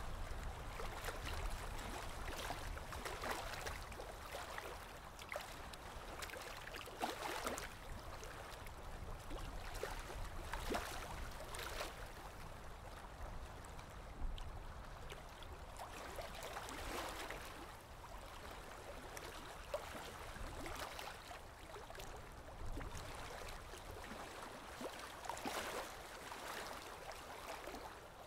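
Faint, uneven gurgling and trickling of water in a goldfish aquarium over a low rumble, with a few small clicks.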